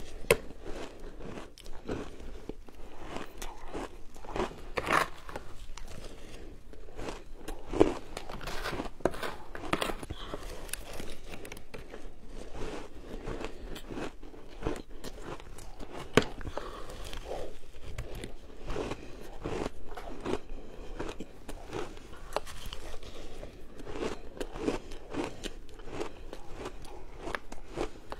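A person biting and chewing mouthfuls of coloured shaved ice, picked up close by a clip-on microphone: continual irregular crunching and crackling, with a few sharper crunches standing out.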